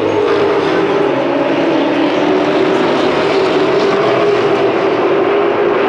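A field of short-track race trucks running together around the oval, their engines blending into a loud, steady drone with several pitches drifting slowly as the pack circulates.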